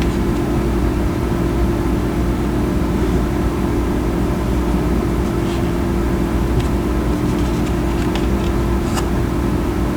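A steady machine-like hum with one held tone over a low rumble, and a few faint ticks.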